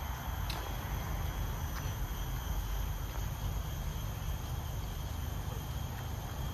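Steady, high-pitched chorus of insects, several unbroken tones at once, over a continuous low rumble.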